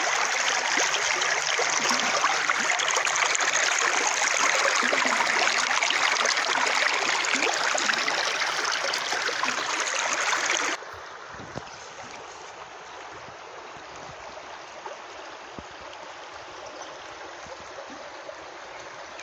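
Shallow stream flowing over stones, a loud, even rush of water; about eleven seconds in it drops abruptly to a quieter, gentler flow.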